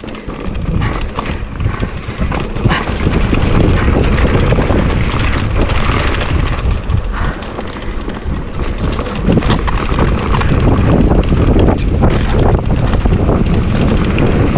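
Wind rumbling on the microphone of a mountain bike camera descending a trail at speed, with the tyres rolling over dirt and grass and scattered knocks from the bike over bumps.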